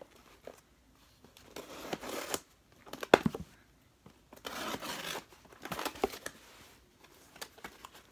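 Scissors cutting and tearing through packing tape on a cardboard box, and the box flaps being worked open: several short bursts of ripping and scraping, with a sharp snap about three seconds in.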